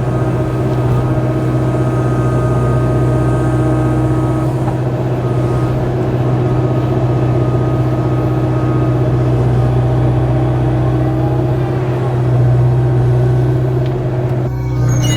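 Kubota KX057-4 compact excavator's diesel engine running steadily.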